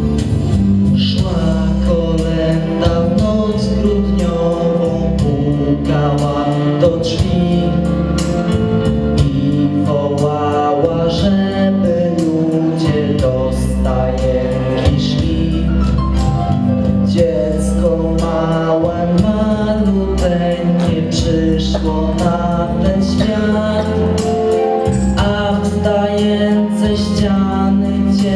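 A young man singing a Christmas carol into a microphone, over amplified instrumental accompaniment.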